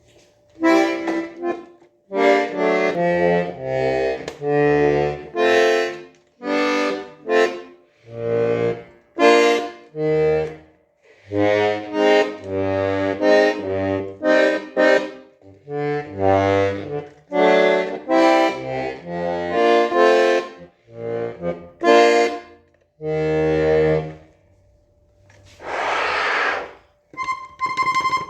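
Parrot button accordion played in short chord phrases with deep bass notes underneath, the phrases broken by brief gaps. About 26 s in there is a short breathy rush of air, followed by a few clean single high notes near the end.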